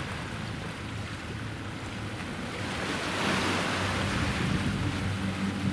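Seaside ambience: wind on the microphone and waves washing, with a low steady engine hum underneath. About halfway through, the hum and the rush of water or wind swell a little louder.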